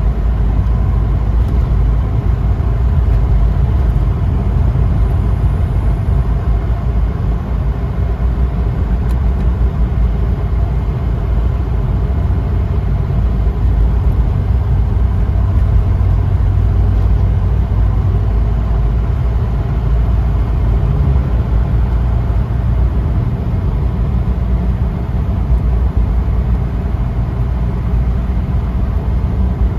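Steady low rumble of a Mercedes-Benz taxi's engine and tyres on the road, heard from inside the cabin while cruising.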